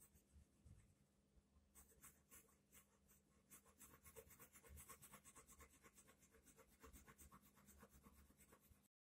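Coloured pencil hatching on paper, faint: quick, light back-and-forth scratchy strokes, several a second. The strokes grow steady about two seconds in and cut off abruptly near the end.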